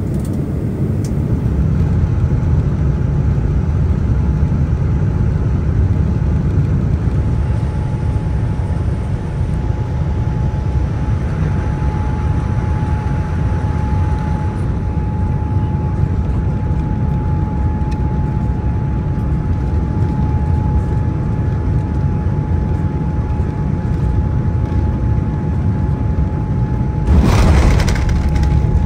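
Jet airliner heard from inside the cabin on final approach and landing: a steady low rumble of engines and airflow with a thin steady tone over it. Near the end a sudden louder rushing surge comes in as the plane touches down and the spoilers deploy on the runway.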